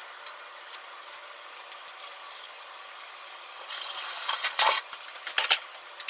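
Hands rolling a rice ball in strips of cooked bacon on a wooden cutting board, with soft rubbing and small ticks. Near the end come a short rustling hiss and a few sharp knocks.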